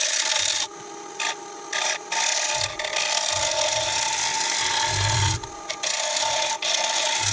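A gouge cutting the inside of a beech bowl spinning on a wood lathe: a steady scraping hiss of shavings that stops and restarts a few times as the tool comes off and back onto the wood, over the lathe's steady hum, with a couple of low bumps around the middle.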